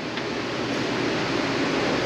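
Steady, even rushing noise with no clicks, knocks or rhythm.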